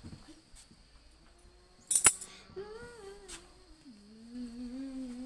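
A person humming one long, wavering note that slides down in pitch and then holds low. There is a sharp snap about two seconds in.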